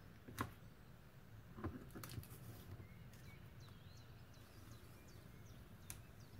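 Near silence, room tone with a few faint soft clicks as blue masking tape is lifted and peeled off a cured resin surface.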